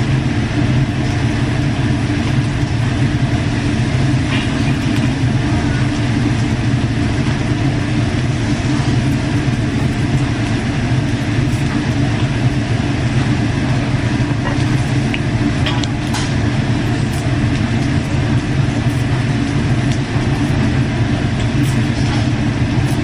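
Restaurant exhaust fan running with a steady low drone, with a few faint light clicks.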